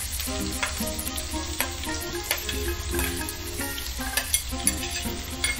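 Chopped onion sizzling as it drops into hot oil with mustard seeds, cumin and curry leaves, with sharp clicks of a steel spoon scraping onion out of a steel bowl. Soft background music plays underneath.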